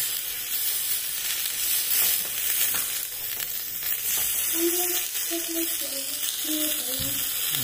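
Meat skewers sizzling as they sear on a hot griddle pan, a steady frying hiss.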